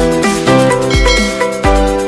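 Electronic intro music: a melody of plucked-sounding notes over deep bass hits about once a second.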